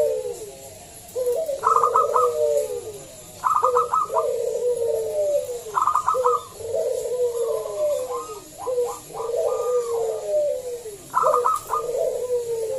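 Zebra dove (local perkutut) singing its loud song: phrases about every two seconds, each a run of quick clipped notes followed by a falling coo.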